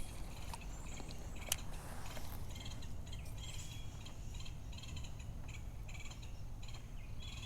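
Rhythmic chirping of calling animals along the water, about two to three pulsed chirps a second, over a low steady rumble, with one sharp click about a second and a half in.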